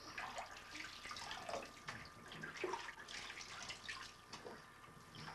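Bathwater splashing and trickling lightly in a bathtub as a baby is washed by hand, in small irregular splashes.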